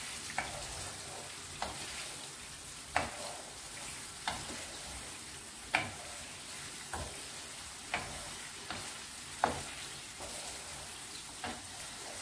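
Chicken pieces sizzling in hot oil in a karahi over a full gas flame, stirred with a spoon that scrapes against the pan about once a second. This is the bhuna stage, where the chicken is browned on high heat.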